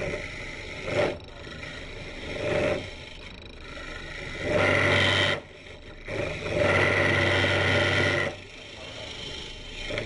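Turning tool cutting the end grain of a spinning green-wood goblet blank on a Jet Mini lathe, in noisy bursts with a squeal: a short cut about a second in, another near two and a half seconds, then longer cuts around the middle. The lathe runs steadily between the cuts. The turner thinks the noise comes from the long length of wood hanging off the chuck.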